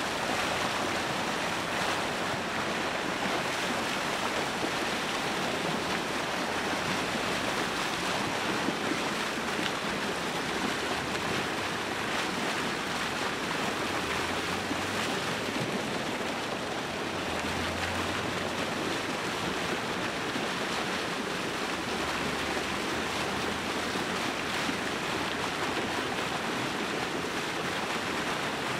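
Steady rushing and splashing of water churning up in a strong boil against the edge of the ice.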